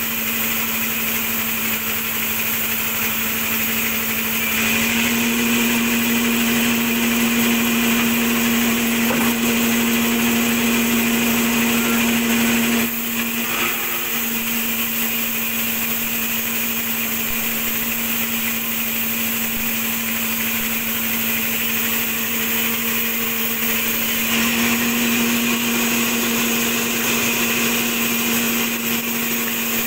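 Large vertical log band saw running with a steady hum, louder and fuller while its blade rips a slab lengthwise off a log, from about five seconds in until about thirteen seconds. It eases to a lighter running sound, then comes under load again for a second cut from about twenty-four seconds in.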